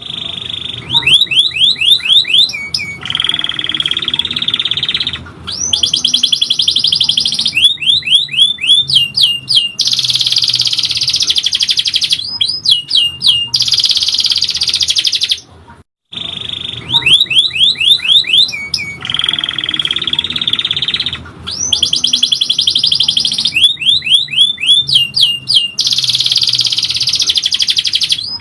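Domestic canary singing a long song: sustained rolling trills alternating with quick series of descending whistled notes. After a brief break about halfway, the same sequence of phrases starts again.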